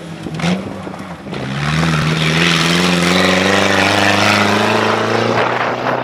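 Off-road rally 4x4's engine revving under hard acceleration as it drives close past, its pitch wavering at first, then loud and climbing slowly from about a second and a half in, with a hiss of tyre and wind noise over it.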